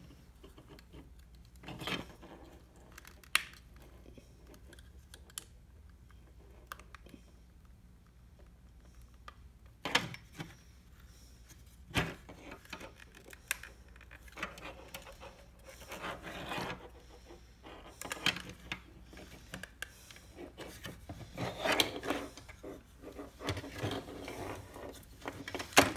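Hands handling a plastic overhead console module and its wiring-harness connector: scattered sharp plastic clicks and knocks, with denser rubbing and rattling in the second half.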